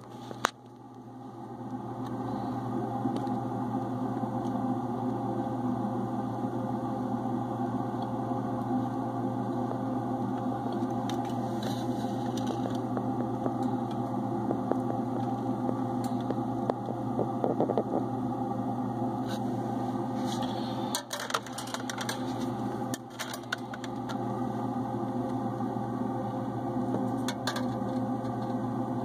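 A steady electric machine hum made of several fixed tones, swelling up over the first couple of seconds and then holding level, with a few light clicks scattered through.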